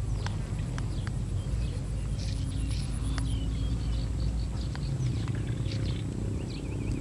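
Outdoor ambience: birds chirping and trilling over a steady low rumble, with a few faint clicks.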